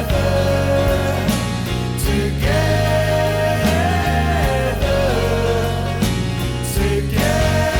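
Band music from an indie rock song: a held melody line sliding up and down in pitch over a steady bass and regular drum hits.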